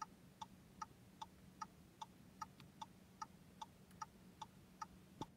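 Car's turn-signal indicator ticking faintly and evenly, about two and a half ticks a second, the right-turn indicator on while waiting to turn right. A low steady hum lies underneath.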